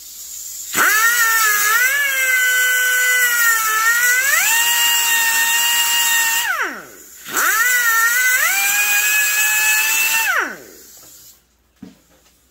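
Pneumatic cut-off tool with a small abrasive wheel whining at high speed as it cuts a metal bracket off a chainsaw exhaust pipe, in two runs of several seconds. The pitch steps up and down while cutting, and falls away as the wheel spins down at the end of each run.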